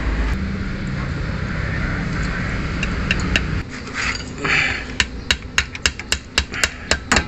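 A low engine rumble that stops about three and a half seconds in. Then a run of sharp metal taps, about three a second, from hand tools working at a tie-rod end nut and its cotter pin.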